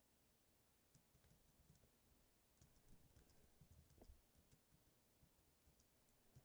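Very faint typing on a computer keyboard: scattered, irregular keystrokes starting about a second in.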